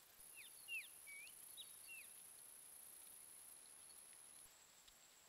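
Faint chirps of a small bird: about half a dozen short, down-slurred calls in the first two seconds, over a thin steady high whine.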